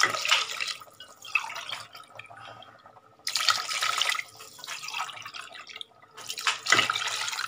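Water poured from a steel tumbler into a pressure cooker of rice and gravy, splashing in three separate pours: at the start, about halfway through and near the end.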